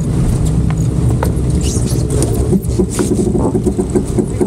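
Steady low rumble of wind buffeting the microphone aboard a racing sailboat, with scattered small clicks and knocks.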